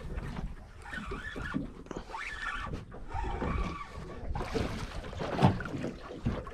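Wind buffeting the microphone and water lapping against a small boat's hull, with a louder splash about five seconds in as a hooked golden snapper is lifted out of the water.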